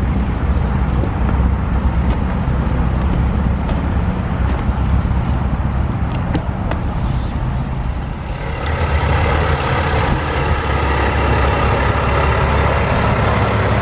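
A car driving off with a low engine rumble, then from about eight seconds in the diesel engine of a fire truck pulling out, louder and fuller, close by.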